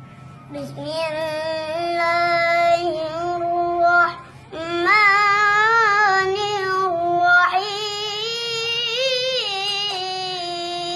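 A young child's high voice reciting in the drawn-out, ornamented melodic style of Quran recitation. Two long phrases, with a short breath about four seconds in.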